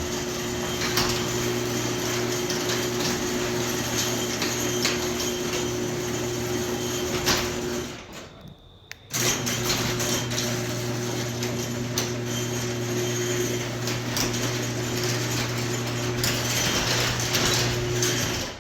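Wayne Dalton Quantum 3212 garage door opener running with a steady motor hum as it drives the door open, stopping for about a second once it reaches the end of travel, then running again to close the door and stopping sharply near the end.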